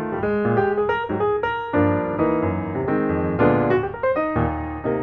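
Background music played on piano: quick runs of notes, with fuller chords held through the middle.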